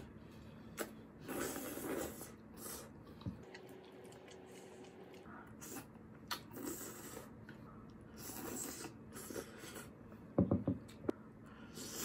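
Quiet eating sounds: soft chewing and mouth noises with a few sharp clicks of utensils on a bowl.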